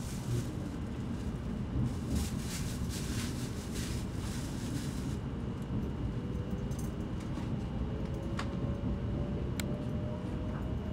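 Shinkansen bullet train pulling out of a station, heard from on board: a steady low rumble, and from about halfway in, an electric traction-motor whine rising slowly in pitch as the train gathers speed.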